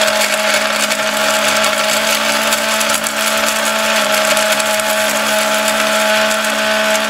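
Atomberg mixer grinder running steadily in normal mode while it grinds coconut without water. Its BLDC motor makes an even hum with a steady whine over the grinding noise of the jar.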